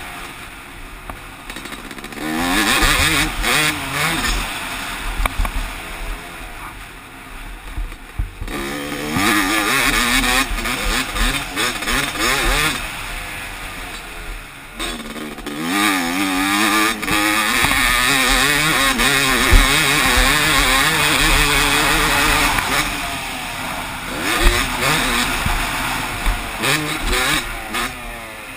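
2009 Yamaha YZ250's single-cylinder two-stroke engine revving hard and backing off several times, its pitch rising and falling through the gears and between corners, heard from a helmet camera.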